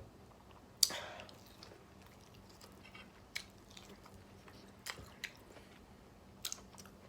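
A person chewing food close to the microphone, with a few sharp mouth clicks and smacks, the loudest about a second in.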